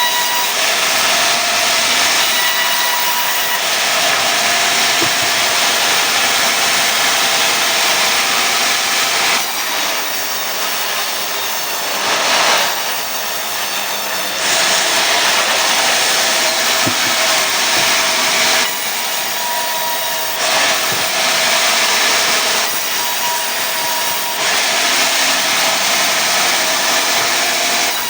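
Sawmill saw cutting pine into boards, a loud steady hiss that drops back for a second or two several times.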